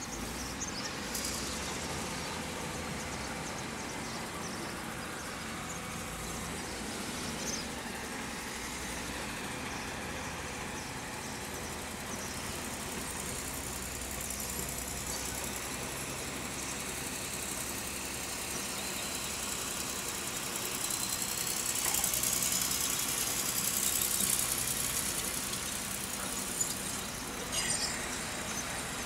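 An engine running steadily, with a louder stretch a little past the middle.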